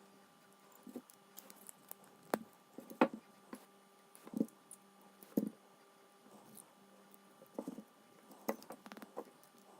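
Scattered small clicks and taps of tools and parts handled while a Lockwood padlock is being taken apart, a sharp tick every second or so.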